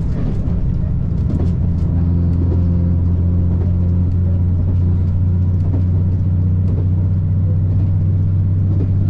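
Diesel railcar engine droning steadily, heard from inside the passenger cabin of a KiHa 283 series express, with scattered clicks and knocks from the carriage rattling as it sways.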